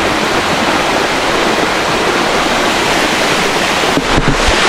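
Small waterfall, about 8–10 m high, pouring into a rocky pool nearby: a loud, steady rush of falling water, with a few low bumps near the end.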